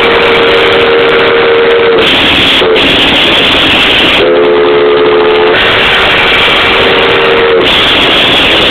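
Steam locomotive whistle blowing a low chord in blasts: one held blast ending about two seconds in, a short toot, then a long blast from about four seconds in until near the end, heard from inside the cab over a loud steady hiss of steam.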